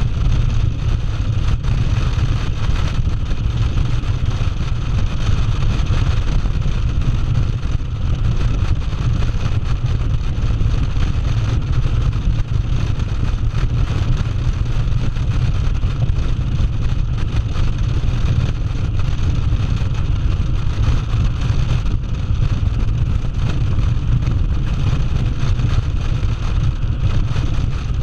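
Cruiser motorcycle running steadily at highway speed, its engine drone mixed with heavy wind buffeting on the microphone.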